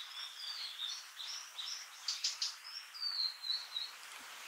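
Blue-and-white flycatcher fledglings calling: a quick string of short, high whistled notes with a few sharp clicks mixed in, stopping about four seconds in.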